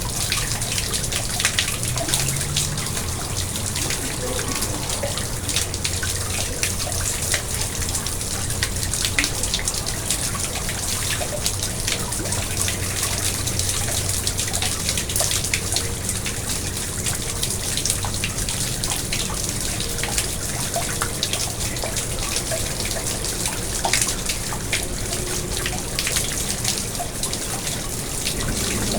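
Water in a garden pond splashing and trickling steadily, with many small drips and splashes.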